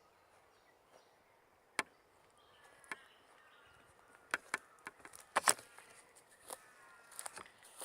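Footsteps crunching on dry ground, a sharp snap or crackle roughly once a second, uneven in spacing, with the loudest cluster a little past halfway.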